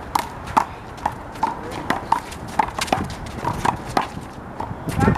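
Rubber handball in a fast rally: sharp smacks several times a second as it is struck by hand, hits the wall and bounces on the pavement.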